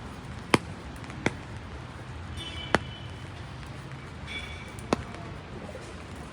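Steady rain and street noise, broken by four sharp, irregularly spaced knocks, the loudest about half a second in.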